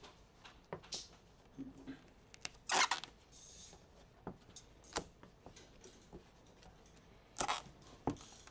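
Squeegee scraping over vinyl decal film as the stripe is pressed down onto the paint, with short crinkles of the film. The loudest scrapes come about three seconds in and again near the end.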